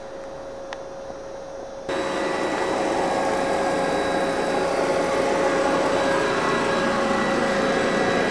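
London Underground Metropolitan line A Stock train: about two seconds in, a loud, steady mechanical whirring with a constant hum starts suddenly and keeps going, with no rise or fall in pitch.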